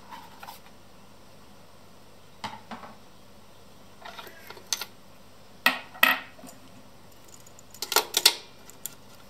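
Handling noises on a Braun PS 600 turntable as the record is taken off and a hand works at the platter and spindle: scattered clicks and knocks. The loudest come around the middle and in a quick cluster near the end.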